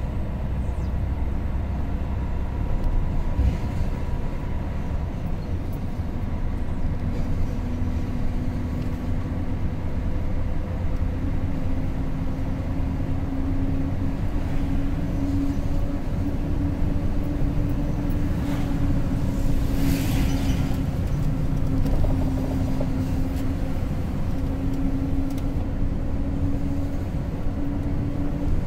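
Car driving on a highway: steady rumble of tyres and engine, with a drone that creeps slowly upward in pitch. A brief rushing hiss about two-thirds of the way through.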